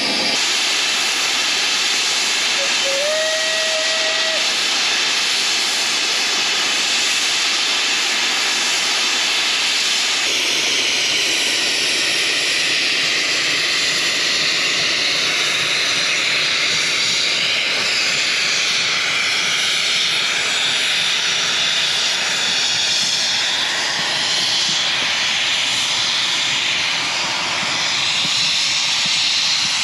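Steam locomotive hissing loudly and steadily as it vents steam while pulling away, with a short whistle note about three seconds in.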